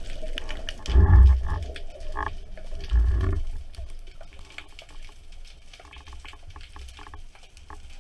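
Underwater water noise around a diving spearfisher: two low rushes of water, about a second in and at about three seconds, then quieter crackling with faint scattered clicks.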